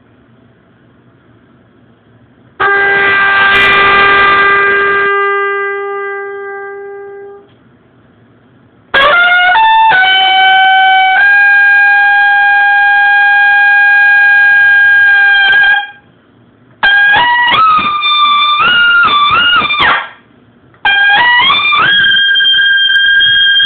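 Trumpet played through a Schilke 14A4a mouthpiece in a small tiled room. It plays a long held note that fades away, then a few quick notes up to a held higher note, a short moving figure, and a bend up to a held note in the high register.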